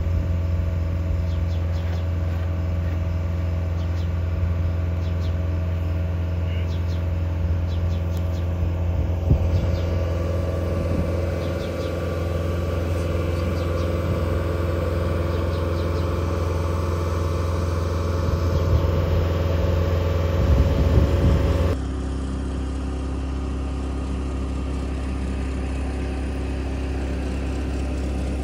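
Engine of heavy construction equipment running steadily at constant speed, a low drone. About three-quarters of the way through, it abruptly shifts to a slightly quieter, lower tone.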